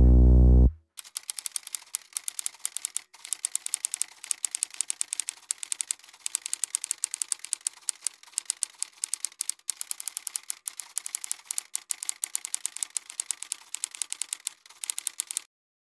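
Typewriter typing sound effect: rapid, irregular keystroke clacks with a few brief pauses. It starts just after a music track cuts off, under a second in.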